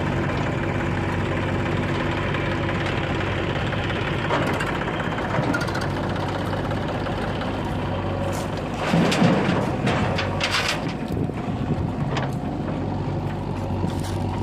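Heavy diesel engine running steadily, with a louder burst of knocking noise about nine seconds in.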